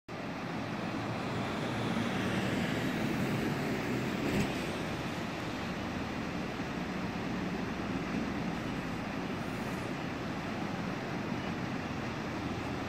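Steady noise of a harbour-side snow-melting site: heavy machinery running and seawater gushing from an outfall into slush-choked water, with a single sharp knock about four and a half seconds in.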